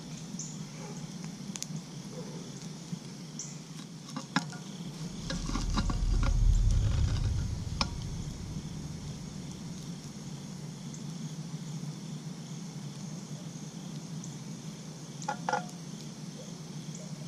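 Metal clinks and scrapes as a cast-iron Dutch oven lid heaped with hot coals is worked with a lid lifter and lifted off. A few short clanks near the end. Crickets trill steadily and a wood fire crackles underneath, with a brief low rumble about five seconds in.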